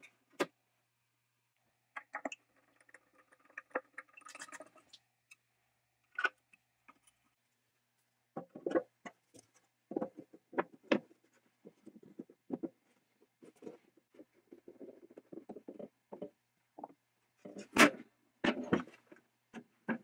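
Painted sheet-metal housing being handled and turned over on a cloth-covered workbench: scattered light taps, clicks and knocks with soft rustling between them, the loudest knocks near the end.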